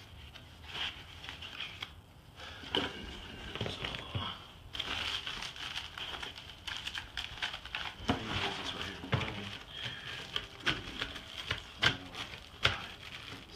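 Packaging being unpacked by hand: white packing paper and plastic wrapping crinkling and rustling, with cardboard scraping and irregular small clicks as a shipping box is cut open and wrapped bullion bars are taken out.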